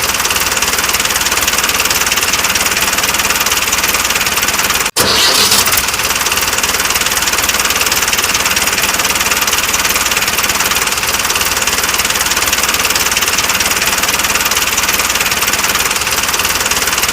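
Tractor engine running loudly and steadily, cutting out for an instant about five seconds in and then carrying on.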